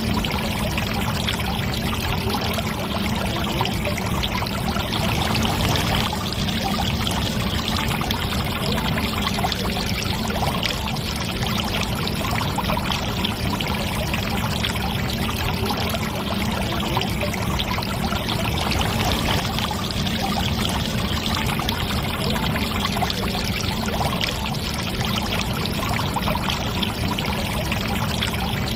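Water pouring steadily in a thin stream from two small spouts on a toy tractor's water tank onto wet sand.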